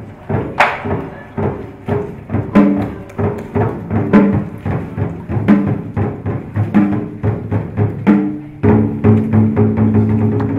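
Traditional Vietnamese folk ensemble music led by percussion: drum strikes and sharp knocks repeat at a quick pace, and a held pitched melody line comes in about eight seconds in.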